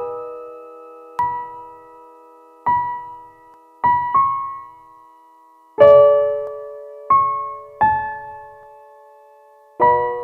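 Slow, sparse solo piano music: single notes and chords struck one to two seconds apart, each left to ring and fade, with a fuller chord about six seconds in.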